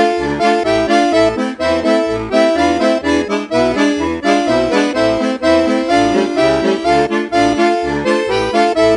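Background music: a reedy, accordion-led melody over a steady bass beat.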